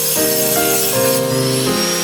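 Background music: sustained keyboard chords changing every half second or so, over a steady hiss.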